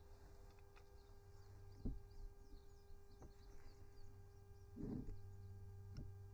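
Quiet background with a steady low hum and faint bird chirps, broken by a few soft clicks and knocks as pliers are handled and set on a metal hose coupling.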